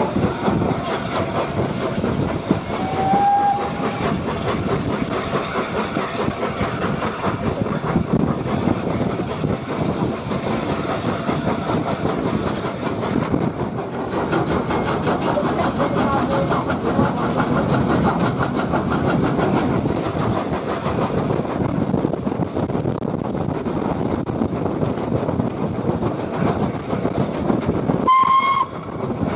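Peppercorn A1 Pacific steam locomotive 60163 Tornado running along the line, heard from the footplate: a steady rush of exhaust, motion and rail noise mixed with wind. A short blast on the steam whistle sounds near the end.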